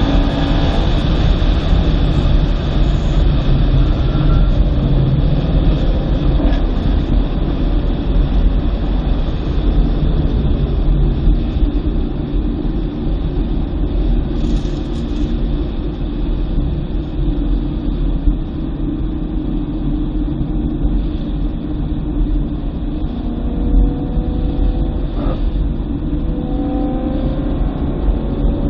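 Inside a 2009 BMW M3 convertible driving on a wet track: a steady rumble of road and tyre noise with the V8 engine running under it. The engine pitch falls shortly after the start and climbs again near the end.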